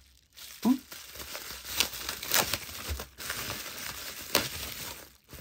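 Plastic packaging and bubble wrap crinkling and rustling as a parcel is unwrapped, with irregular sharp crackles.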